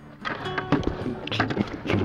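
Fishing gear being handled in an inflatable boat: a plastic bucket holding a rod and reel is moved about, giving several knocks and clunks with short squeaky rubbing tones in between.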